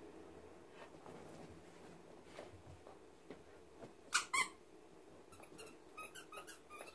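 Squeaky dog toy squeezed by hand: two loud squeaks about four seconds in, then a quick run of fainter short squeaks.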